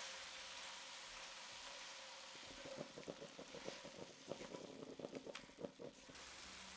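Stir-fry of tofu and vegetables frying in a pan with a faint, steady sizzle, and a spatula stirring it: a quick run of clicks and scrapes of the spatula against the pan from about two and a half to six seconds in.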